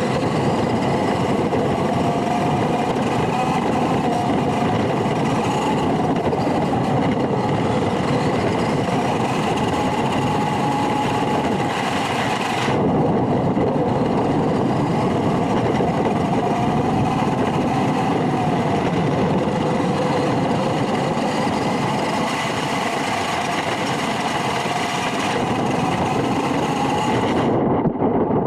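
Small electric RC pickup truck running close to the microphone, its motor whining in a pitch that rises and falls with speed over a dense, continuous rumble. The sound changes abruptly about halfway through and again near the end.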